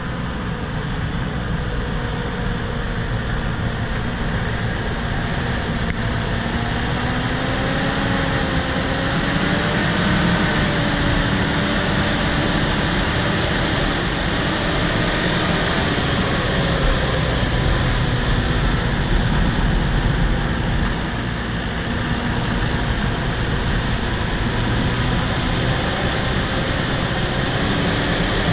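Bulldozer's diesel engine running steadily, with faint tones that waver slowly up and down in pitch.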